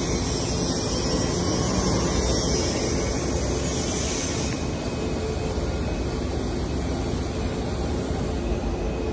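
A steady, even mechanical noise with a faint low hum and no distinct events, like machinery or an engine running in a large hall; the high hiss eases about halfway through.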